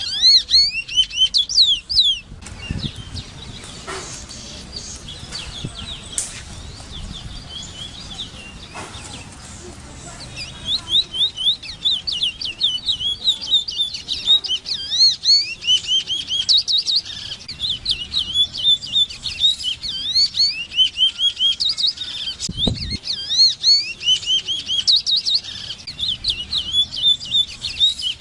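Large-billed seed-finch (Sporophila crassirostris) singing a fast run of high, sliding whistled notes. The song stops after about two seconds and starts again about ten seconds in.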